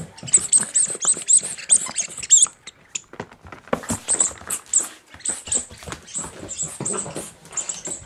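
A puppy chewing a rubber squeaky toy: rapid runs of short, high squeaks, about four or five a second, breaking off for about a second midway, with claws clicking on a hard floor.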